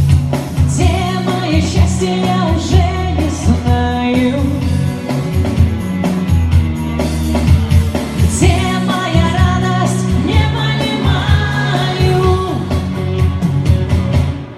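Pop song playing: a singing voice over bass and a steady beat.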